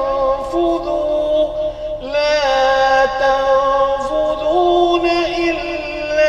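A voice chanting an Arabic ruqyah recitation in long, held melodic notes, with the melody turning about two seconds in and again past four seconds.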